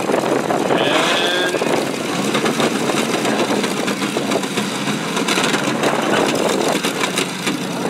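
Demolition derby truck engines revving hard under load while two trucks shove against each other, wheels spinning in the dirt; a loud, crackly, steady engine noise.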